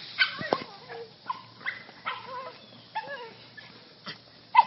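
Dog whining and yipping in excited greeting: a string of short, high cries that bend in pitch, about two a second, with a sharper, louder yelp near the end.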